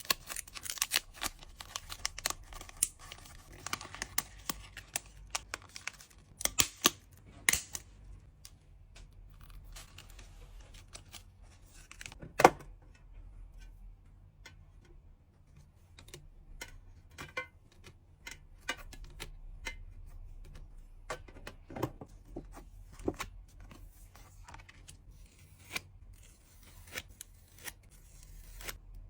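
Close hand-handling of trading cards and their packing materials: plastic and paper crinkling and rustling, with many scattered sharp clicks and taps. The loudest is a single sharp snap near the middle.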